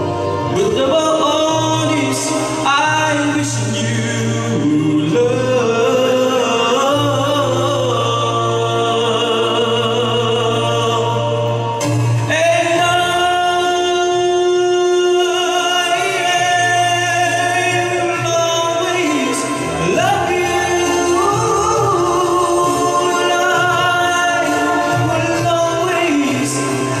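A man singing into a handheld microphone over instrumental accompaniment, holding one long note about halfway through.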